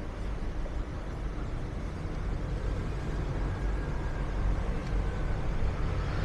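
Busy city street traffic: a steady low rumble of double-decker buses and cars going by, with a faint high whine through the middle seconds.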